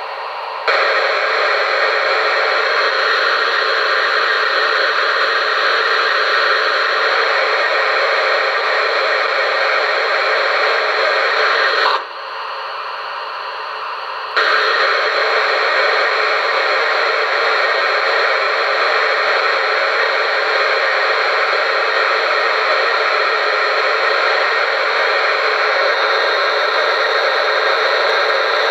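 QSI Maxx Traxx small-steam sound panel playing a steady steam hiss through its speaker. The hiss swells up about a second in, cuts out for about two seconds midway, then starts again at the same level.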